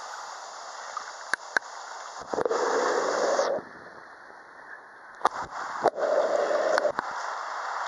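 Seawater churning and rushing around a camera being tumbled in a breaking wave. The rush swells loudly twice and drops back between, with several sharp clicks and knocks.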